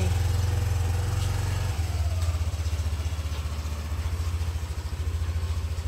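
Yamaha Aerox 155 scooter's single-cylinder engine running as the scooter moves off, steadier and louder for the first second and a half or so, then settling into an even, low pulsing beat.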